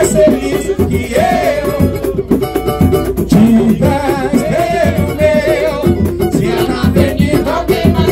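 Live samba played on pandeiro, a hand-played wooden barrel drum and cavaquinho: a steady, busy percussion rhythm with the pandeiro's jingles, a strummed small-string accompaniment, and voices singing a wordless melody over it.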